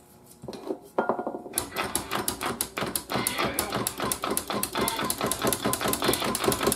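Dense, rapid scratchy crackling from an old Philco tube radio's speaker as a dirty control switch, freshly sprayed with contact cleaner, is worked. The crackle starts about a second and a half in and keeps going.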